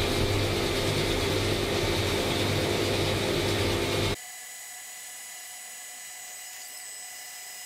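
CNC machining centre boring out a cylinder of an aluminium Subaru EJ22 engine block to take a new sleeve, coolant spraying: a loud, steady run of cutting and spray noise over a low hum. About four seconds in it drops abruptly to a much quieter, steady high whine.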